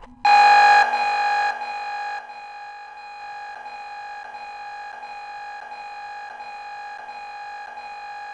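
A steady electronic drone tone, loud at first and stepping down in level over the first two seconds, then held on quietly at an unchanging pitch.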